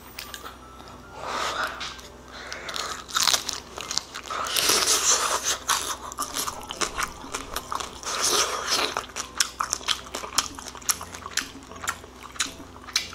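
A person biting and chewing crispy air-fried rice-paper-wrapped chicken, the shell crackling in many short crunches that come thicker in the last few seconds.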